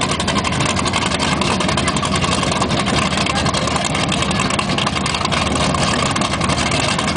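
Twin supercharged engines of a 1200 hp Fountain offshore powerboat running at low speed. They give a loud, steady rumble with rapid exhaust pulses throughout.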